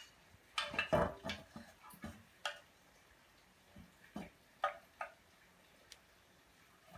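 A pencil tapping and poking into the holes of a wooden stool seat: irregular light taps and clicks, several close together in the first couple of seconds, then a few more, spaced out.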